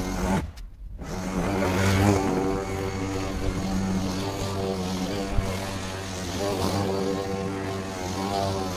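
Parkside 20V cordless lawnmower running, its electric motor and blade making a steady hum whose pitch wavers as it cuts tall, overgrown grass. The sound drops out for about half a second near the start, and there is a single click about five seconds in.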